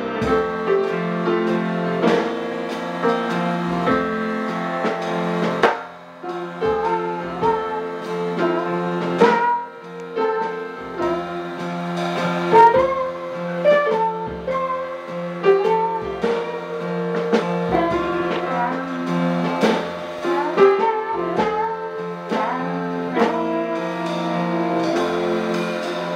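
Live band playing an instrumental passage, with guitar and drums.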